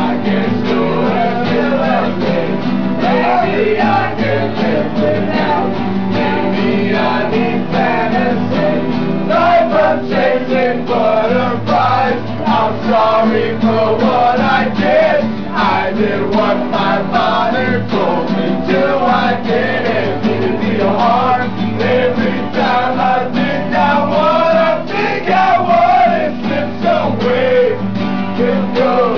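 Acoustic guitar strumming with a man singing over it.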